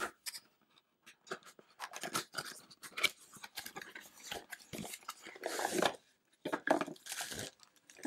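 Cardboard product box being opened by hand: irregular scrapes and clicks of the flaps being pulled back, with crinkly rustling of the packaging as the contents are lifted out, loudest a little past halfway and again near the end.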